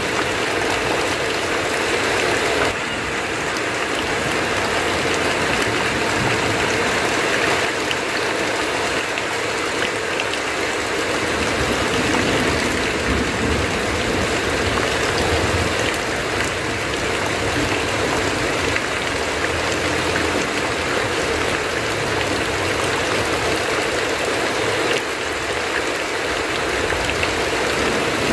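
Heavy rain drumming steadily on a tin roof, with water running off the eaves, and now and then a low rumble underneath.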